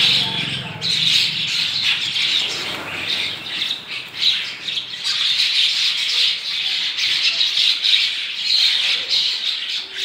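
A large flock of starlings calling all at once while feeding on the ground: a dense, unbroken chatter of squawks and chirps.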